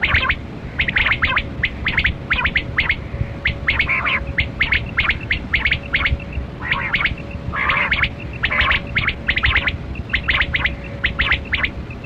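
Rain quail (kali kirak batera) calling: quick, sharp, short notes, often in pairs, repeated over and over in clusters, over a faint steady hum.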